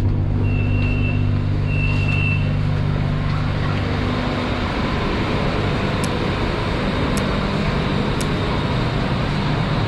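BTS Skytrain electric train in motion: a steady low hum that fades after about four seconds into an even rushing running noise. Two short high beeps sound near the start.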